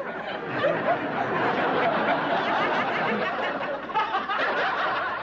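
Studio audience laughing steadily through a wordless sight gag.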